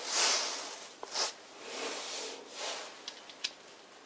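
Small metal lathe parts, a brass dial collar and a steel piece, being handled and fitted together by hand: short scraping, rubbing sounds, then a few light metal clicks after about three seconds.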